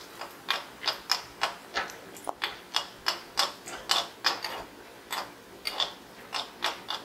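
Metal spoon repeatedly knocking and scraping against a kadai while cashews are stirred in hot ghee, a steady run of clicks at about three a second.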